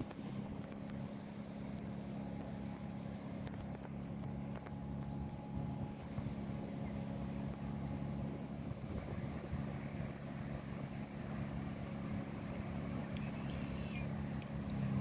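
Diesel locomotives of an approaching Union Pacific freight train heard from a distance: a steady low drone that grows louder near the end. A high insect chirp repeats about twice a second over it.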